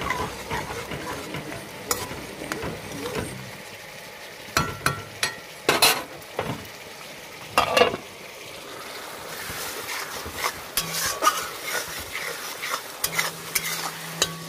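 Metal spatula stirring and scraping food in an aluminium karai on a gas stove, over a steady frying sizzle. A few sharp metal clanks of spatula and pot lid ring out, the loudest about six and eight seconds in.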